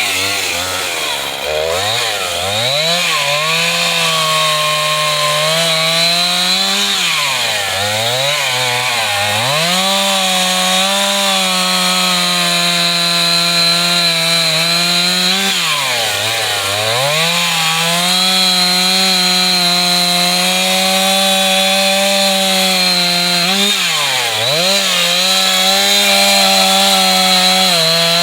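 Two-stroke chainsaw run at high revs, held near full throttle. Its pitch drops back toward idle several times and climbs again as the throttle is released and squeezed, the uneven throttle work of a first-time operator.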